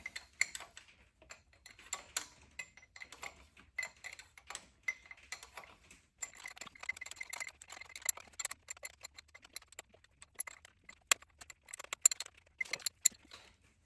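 Hand wrench working bolts on a tractor's diesel injection pump: a run of irregular metallic clicks and ticks, with a few sharper louder clicks near the end.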